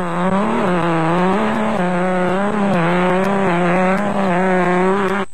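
Engine of an off-road racing Nissan Hardbody pickup at high revs, its pitch dipping and rising repeatedly as the throttle is worked through the corners, then climbing near the end.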